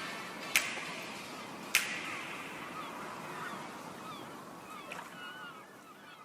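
Two sharp percussive hits in the first two seconds as the music fades out, then a flock of geese honking faintly, the short calls coming thicker toward the end.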